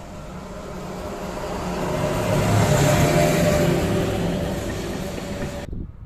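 Electric locomotive hauling a passenger train as it approaches and passes close by: a rumble of wheels on the rails with a steady hum from the locomotive, growing louder to a peak about halfway, then cut off abruptly near the end.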